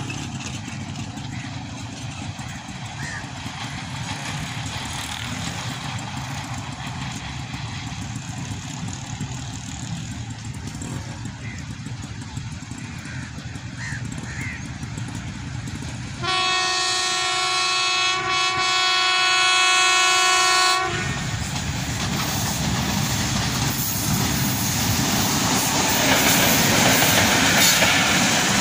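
Passenger train approaching and passing close by. A low steady rumble comes first, then about 16 seconds in one long locomotive horn blast lasting about four and a half seconds, then the rumble of the coaches rolling past, growing louder near the end.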